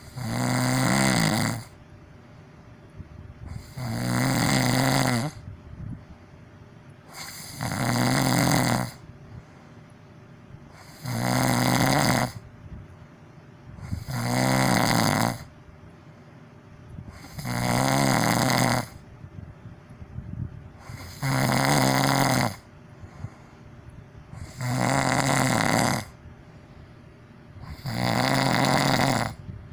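A person snoring loudly in a steady rhythm: nine long, buzzing snores, one about every three and a half seconds, with quieter breathing between them.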